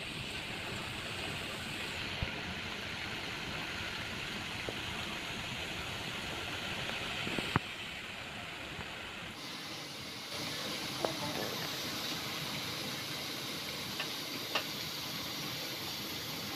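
Diamond-cut wheat-flour dough pieces deep-frying in hot oil, a steady sizzling hiss as the oil bubbles around them, with a few short sharp clicks.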